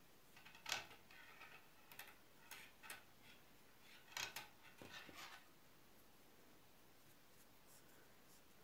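Faint rustling and light clicks of yarn being knotted and knitting needles handled, scattered over the first five seconds, then near silence.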